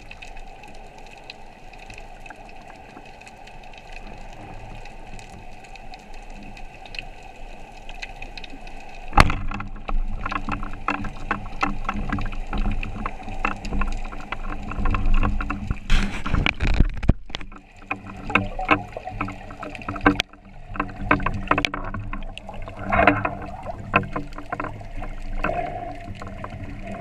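Water noise heard underwater, with many clicks and knocks that start suddenly about nine seconds in over a low rumble.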